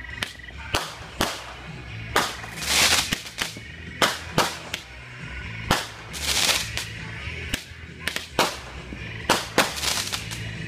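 Fireworks going off: about a dozen sharp, uneven bangs. Two longer hissing bursts come about two and a half seconds in and again near six seconds.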